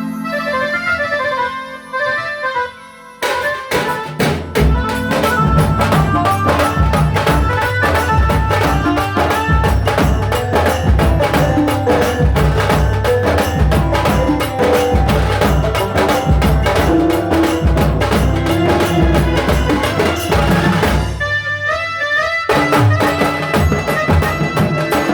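Traditional tasa drum music. A melody plays alone for about three seconds, then fast, dense drumming comes in under it, drops out briefly near the end, and comes back.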